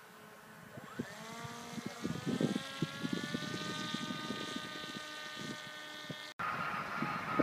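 Homemade UAV's motor and propeller throttling up overhead, its whine rising in pitch and then holding steady. Wind buffets the microphone with low thumps. Near the end the sound cuts off abruptly and a similar steady propeller tone carries on.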